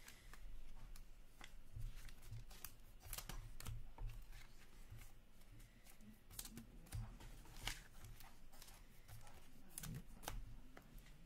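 A foil trading-card pack being torn open and its wrapper crinkled, with scattered faint crackles and light clicks of cards being handled.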